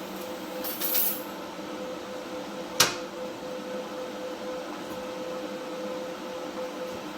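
AC TIG welding arc on aluminum from a PrimeWeld 225X set to 95 amps and 120 Hz AC frequency, buzzing steadily as filler rod is dabbed in. A brief hiss comes about a second in and a sharp click near three seconds.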